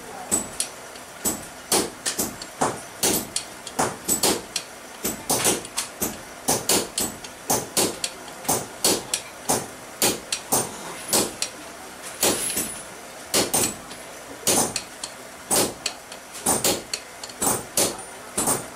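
Hand hammer striking red-hot steel on an anvil, forging a ball peen hammer head: a steady run of sharp metallic blows, about two to three a second.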